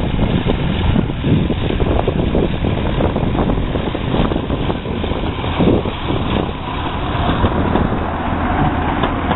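Self-propelled motor railcar, an 1885 narrow-gauge coach rebuilt as a standard-gauge motorized car, running past along the track: a steady engine drone mixed with wheel and rail knocks.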